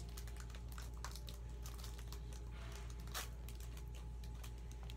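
Light crinkling and small clicks of a foil Pokémon booster pack being handled and torn open, with one sharper crackle about three seconds in, over a steady low hum.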